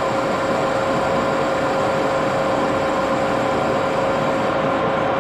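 Axelson engine lathe running steadily with a constant whine while the cutting tool is fed slowly outward across the part.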